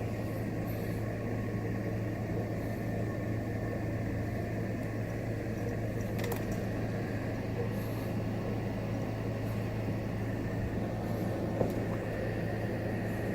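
A steady low mechanical hum over even background noise, with a single sharp click about six seconds in.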